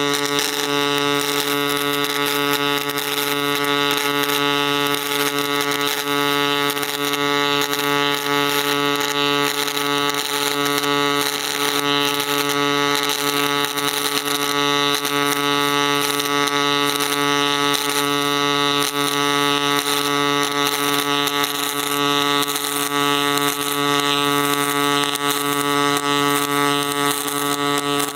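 Pulse-spray MIG (GMAW) arc welding aluminium plate, vertical up: a steady pitched buzz from the pulsing arc with a crackling hiss over it, unbroken throughout.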